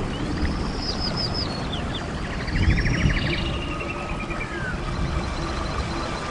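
Birds chirping: a quick run of about four falling notes about a second in, then a fast rattling trill, over a steady low rumble.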